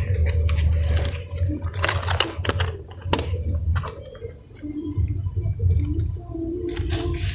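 Slime squished and worked in the hands close to the microphone: wet squelching with a few sharp pops over a low handling rumble.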